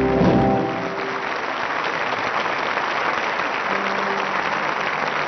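The band's last sustained chord, with organ, stops about half a second in, and audience applause follows.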